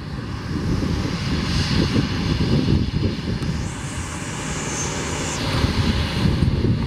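Airbus A340's four CFM56 jet engines at taxi power as the airliner rolls past, a steady low rumble with a high whine that comes in for a couple of seconds around the middle.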